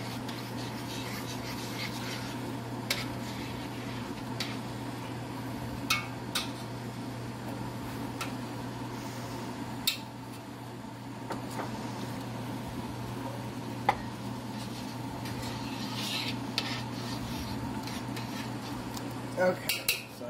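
Metal spoon stirring broth in a stainless steel pot, with a few sharp clinks of the spoon against the pot, over a steady low hum.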